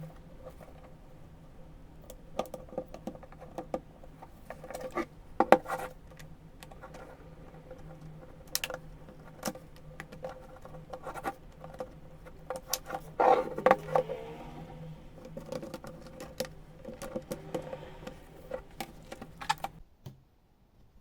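Irregular small clicks, taps and scrapes of plastic and small metal parts being handled while a laptop is taken apart, over a faint steady hum.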